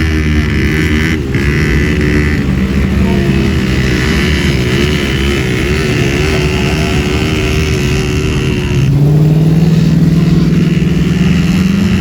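Mitsubishi Pajero's engine running under load while driving on sand, its pitch wavering; about nine seconds in, the note changes and the revs climb slowly.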